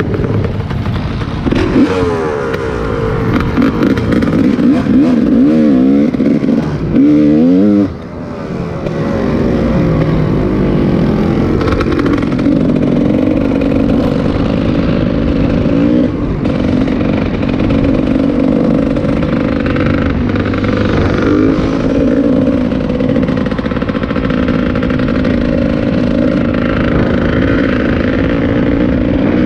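A motor vehicle's engine revving up and down several times in quick succession, then running at steadier revs with a slight rise and fall.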